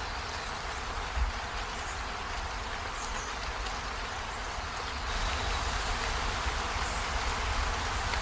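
Steady rainfall, an even hiss with a low rumble underneath, getting a little louder about five seconds in. A brief low bump about a second in.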